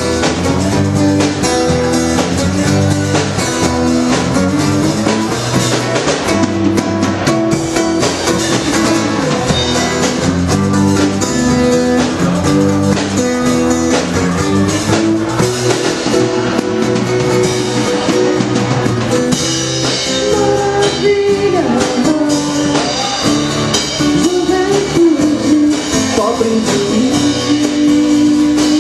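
Live band playing a song: drum kit, electric bass and acoustic guitar, with a sung vocal.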